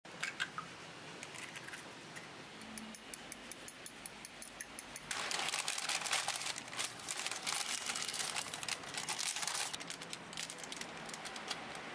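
Faint small ticks for the first few seconds, then, about five seconds in, parchment baking paper is crumpled and pressed by hand, a loud crinkling that goes on for about four and a half seconds before dying away.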